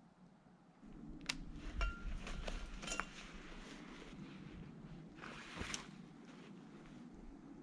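A backpack with snowshoes strapped to it being taken off and handled: a few sharp clicks and clinks between about one and three seconds in, then a rustle as it is set down in the snow a little after five seconds.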